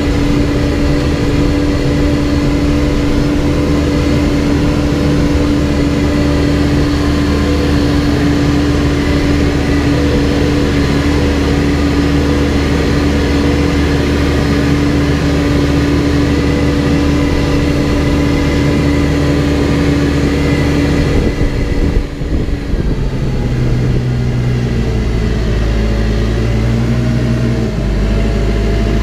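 Backhoe engine running steadily under work. About three-quarters of the way through, its note briefly drops and changes, then shifts up and down in steps.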